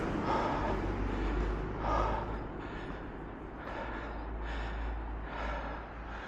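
A runner's heavy rhythmic breathing, about one breath a second, over a steady low rumble of wind on the microphone.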